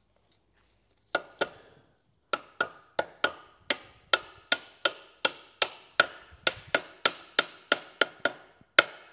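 Hammer tapping on metal, fitting a part into the Sunbeam 1000HP gearbox during reassembly: two blows about a second in, then a steady run of about three blows a second, each with a short metallic ring.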